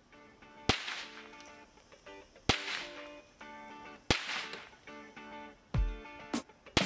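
A series of .22 Long Rifle shots striking a laptop, each a sharp crack with a short ringing tail, about six in all spaced one to two seconds apart.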